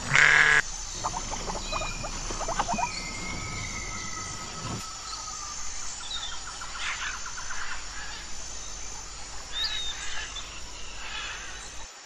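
A goat's bleat ends in the first half-second and is the loudest sound. Birds then call over outdoor ambience: several runs of rapid, harsh rattling calls, typical of helmeted guineafowl, and a few long whistled notes.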